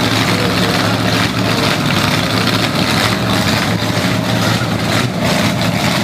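Many hot rod and classic car engines idling together in a steady, loud rumble.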